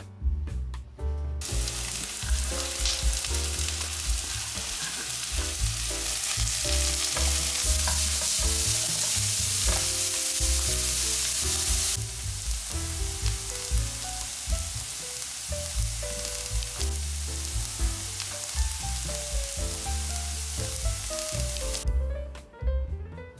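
Food frying in hot oil in a pan, a steady sizzle that starts about a second in and stops near the end, with background music playing underneath.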